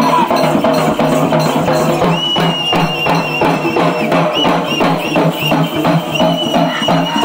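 Music with rapid, evenly spaced drum beats over a steady low drone. From about two seconds in, a high wavering melody comes in and returns near the end.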